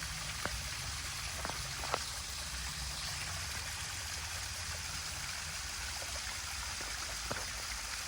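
A small woodland waterfall and creek rushing steadily, with a few faint clicks.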